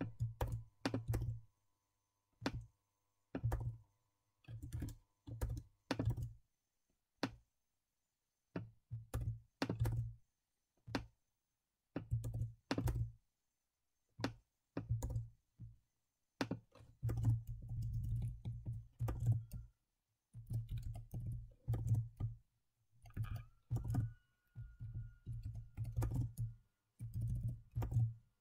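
Typing on a computer keyboard: quick runs of keystrokes with short pauses between them, each key a sharp click with a dull thud beneath.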